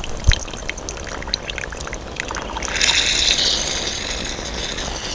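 Espresso trickling and dripping from a hand-pumped Handpresso portable espresso maker into a cup, driven by its 16-bar pumped air pressure, with a louder hissing spurt about three seconds in that slowly fades.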